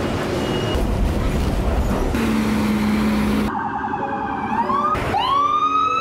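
City street traffic noise, then from about three and a half seconds in an emergency-vehicle siren: a fast warble that breaks into two rising wails, cut off abruptly at the end.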